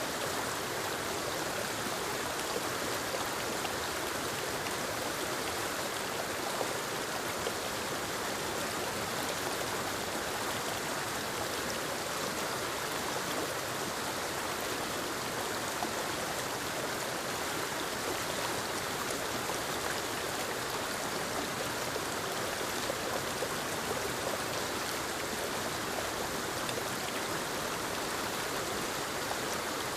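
Small forest waterfall cascading over rocks into a stream, a steady, even rush of falling and splashing water.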